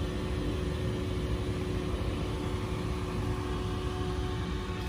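Steady machine hum with a low rumble and one constant tone.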